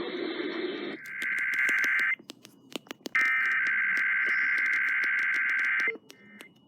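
Emergency Alert System SAME header data bursts: a rapid, shrill two-tone digital warble. A short burst comes about a second in, after a moment of radio hiss, and a longer one follows after a one-second gap, heard over radio with static crackle. These are the coded header that opens an EAS alert, here a Required Monthly Test, just before the attention tone.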